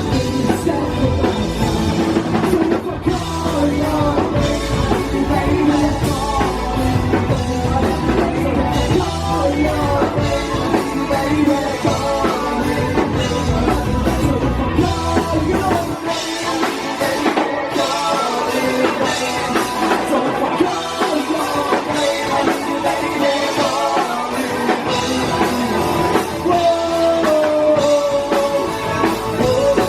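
Rock band playing live with drum kit and guitars. The deep bass drops away about halfway through.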